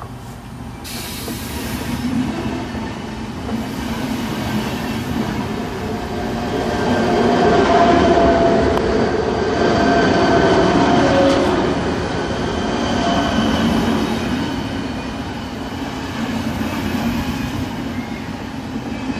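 Czech Railways class 471 CityElefant double-deck electric multiple unit passing close by, its wheels rolling on the rails with a steady ringing tone over the rumble. It is loudest about eight to eleven seconds in as the cars go by.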